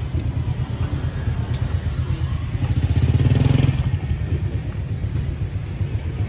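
Steady street-traffic rumble, with a motorbike engine passing close and louder from about three to four seconds in.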